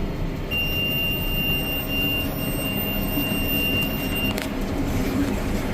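A round baler's in-cab monitor sounds one steady high alarm tone for about four seconds, signalling that the bale is full and ready to tie. The tractor runs steadily underneath.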